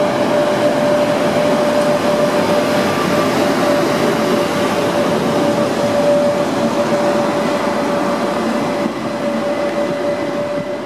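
Sr1 electric locomotive hauling a passenger train past a station platform: a steady rumble of wheels and running gear with a constant whine over it, a little quieter near the end.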